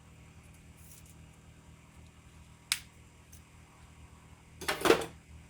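A sharp click about two and a half seconds in, then a short rattling clatter near the end, over the steady hum of a fan.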